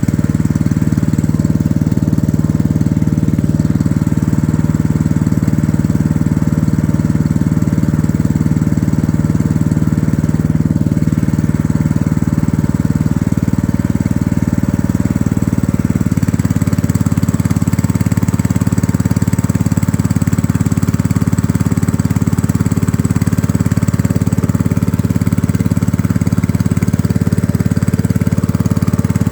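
Small engine running steadily to drive a water pump that draws water into a rice paddy. Its tone shifts slightly about halfway through.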